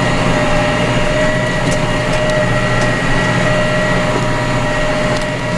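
Tractor engine running steadily while driving along, with a steady whine above the engine note.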